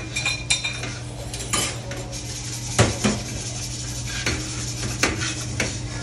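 Steel wool scouring a stainless steel stockpot by hand: irregular scraping strokes and a few sharp metal knocks as the pot is turned, over a steady low hum.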